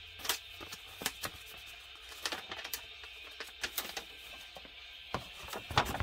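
Irregular light clicks and crackles of paper and plastic being handled: a folded paper instruction sheet being taken out and unfolded, louder near the end.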